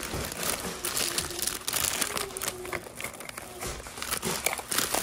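Clear plastic packaging crinkling and crackling irregularly as it is handled.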